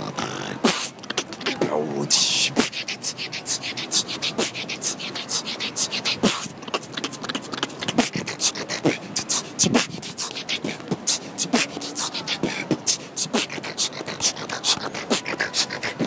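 Live human beatboxing: a fast, continuous rhythm of sharp percussive mouth sounds.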